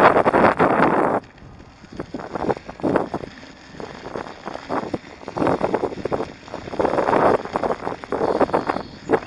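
Wind buffeting the camera's microphone, loud for about the first second, then dropping away and coming back in uneven gusts.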